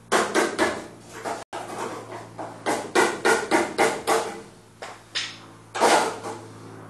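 Hammer striking a chisel into the rusty sheet metal of a car's rear quarter panel to tear it off: a run of ringing metallic blows, several a second, in bunches with short pauses.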